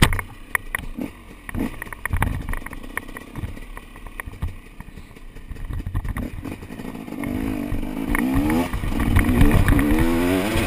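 KTM 250 SX two-stroke motocross bike heard from its onboard camera. At first there is a low engine rumble with scattered knocks and rattles as it rolls slowly. About seven seconds in, the engine revs up and down repeatedly and gets louder as the bike accelerates along the track.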